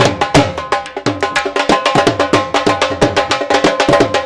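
Dhol drum beaten in a fast, driving rhythm, its deep bass strokes dropping in pitch after each hit under sharp treble strokes.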